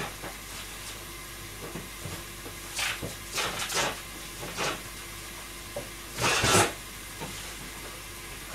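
Kitchen handling noises while meat is got ready by the stove: a few short knocks and clicks, then a louder burst of noise lasting under half a second about six seconds in, over a steady low hiss.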